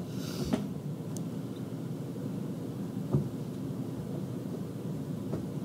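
Room tone: a steady low hum with two soft knocks, one about half a second in and another a little after three seconds.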